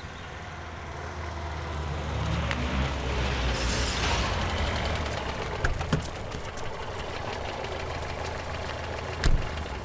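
Heavy diesel engine of a road roller running with a low steady drone that grows louder over the first few seconds. A hiss comes about four seconds in, and a thump near the end.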